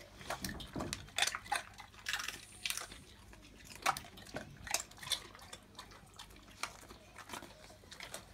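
Golden retriever crunching a dried, puffed pig-snout chew: irregular crisp cracks and crunches, thick in the first few seconds and thinning out toward the end.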